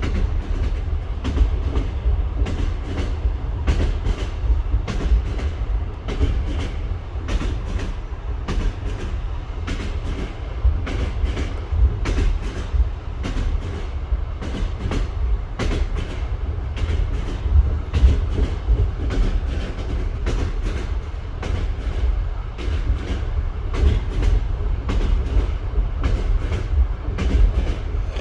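Train wheels knocking without let-up over rail joints on jointed track, many sharp clacks over a steady low rumble.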